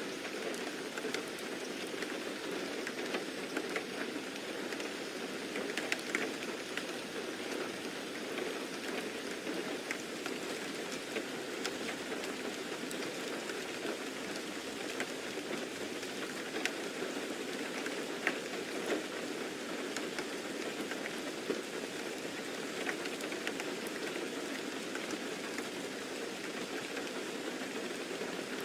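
Steady rain falling on a surface, a continuous hiss with scattered sharp drop ticks.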